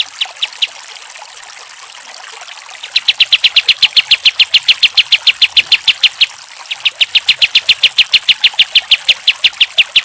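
Kapas tembak, a bulbul, calling in rapid runs of sharp repeated notes, about eight a second: a few notes at the start, then two long runs from about three seconds in, broken by a short pause. A steady hiss lies underneath.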